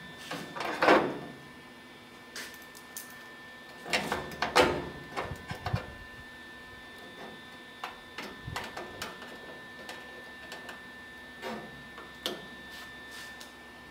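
Metal clicks and clanks of locking pliers being clamped, released and shifted on sheet metal, with a few sharper knocks, the loudest about one second in and again around four to five seconds in.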